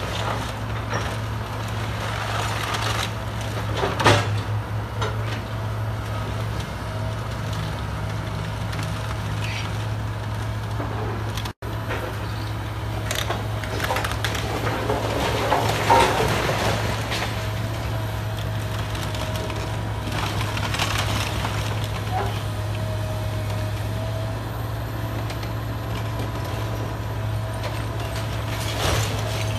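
Excavator's diesel engine running steadily as it demolishes a wood-frame house, with crunching and splintering of timber and debris. Two loud cracks stand out, about four seconds in and again about halfway through.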